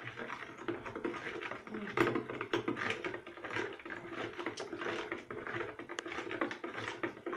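Sugar, salt and a little water being stirred in a plastic mixing bucket: a steady scraping and swishing dotted with many small clicks and taps.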